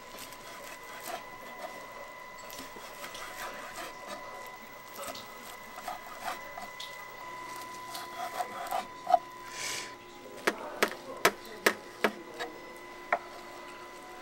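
Scattered knocks and rubbing on wood during food preparation, with a quick run of five or six sharp knocks about ten to twelve seconds in. A steady high electrical whine runs underneath.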